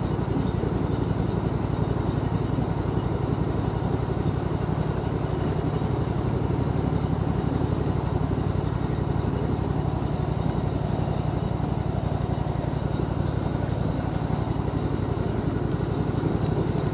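Small boat's outboard motor running steadily at an even speed, heard from aboard the boat as it moves through a marsh channel.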